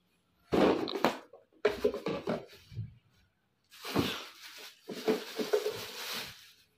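Clear plastic packing wrap rustling and crinkling on and off while plastic storage jars are unwrapped and lifted out of a cardboard box.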